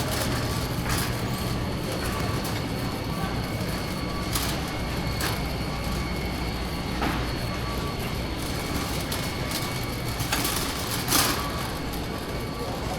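Shopping cart rolling over a concrete store floor: a steady low rumble with irregular clicks and knocks, the loudest about 11 seconds in, over the steady hum of a large warehouse store.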